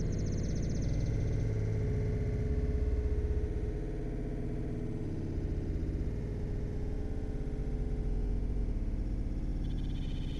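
Background synthesizer music with a steady held tone.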